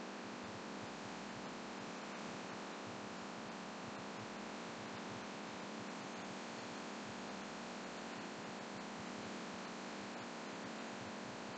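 Laminar flow hood blower running: a steady rush of air through the filter, with a low hum and a few faint scattered clicks.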